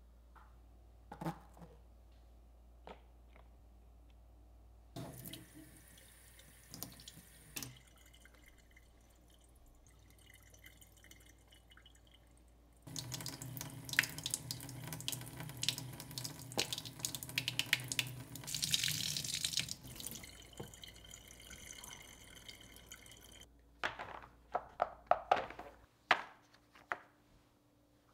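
Water from a kitchen faucet splashes onto a silicone dish-drying mat at the sink edge. It starts about halfway in and runs for roughly ten seconds, loudest at first and then weaker. Before it come a few light knocks of items being handled, and near the end a short run of sharp knocks.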